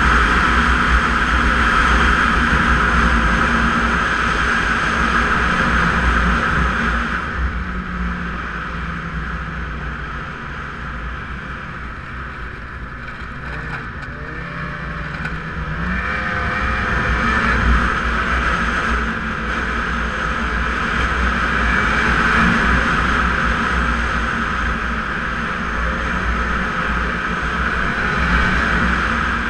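Snowmobile engine and track running under way. The sled eases off about a quarter of the way in, then its engine note climbs as it picks up speed again around the middle.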